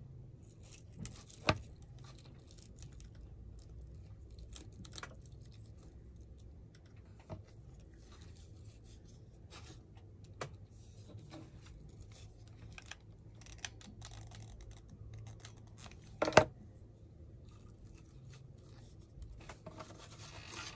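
Hands handling and pressing small craft pieces onto a plaque on a wooden table while gluing: scattered light clicks, taps and rustles, with one sharper knock about three-quarters of the way through.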